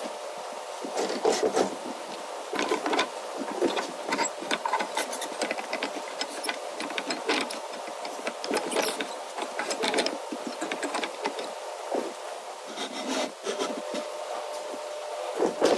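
Irregular scraping, rubbing and light knocks of wood and metal hardware being handled, with a steady hum underneath.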